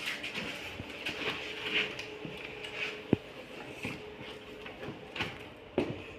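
Scattered light clicks, taps and metallic rattles of things being handled, with one sharp click about three seconds in, over a faint steady hum.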